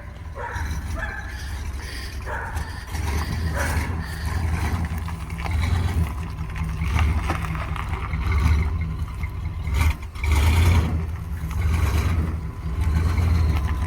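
Chevrolet 350 small-block V8 of a 1973 Impala running as the car moves, a deep low rumble that swells and eases every second or two.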